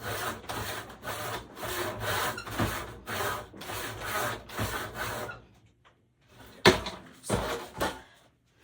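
Handsaw cutting through wood in steady back-and-forth strokes, about two a second, stopping a little past halfway. Three sharp wooden knocks follow near the end, the first the loudest.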